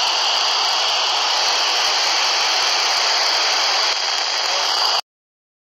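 Steady FM receiver hiss from a Kenwood dual-band handheld transceiver's speaker on 145.800 MHz. It is open-squelch noise with no signal: the space station's downlink has gone quiet after the astronaut's "over". It cuts off suddenly about five seconds in.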